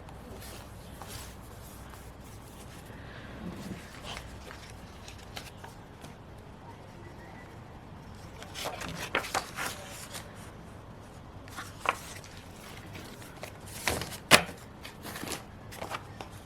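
Paper and stationery being handled: rustling with scattered sharp taps and clicks, a cluster of them a little after halfway and the loudest near the end.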